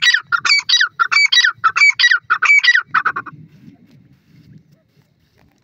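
Grey francolin calling: a fast, loud run of repeated multi-note phrases, about one every three-quarters of a second, that stops about three seconds in, followed by faint low rustling.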